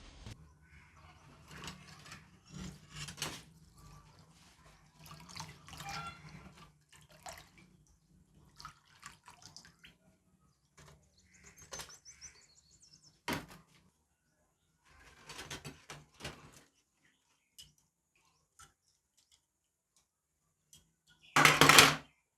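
Water splashing and rubbing in short, irregular spells, with a loud burst of splashing near the end.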